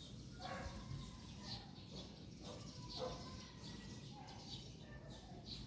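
Faint outdoor ambience with scattered distant bird chirps and calls.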